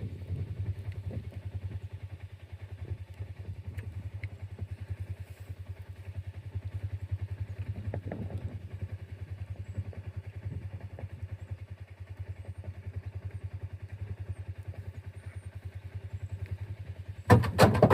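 An engine running steadily with a fast, even low pulse, then a loud burst of clattering knocks near the end.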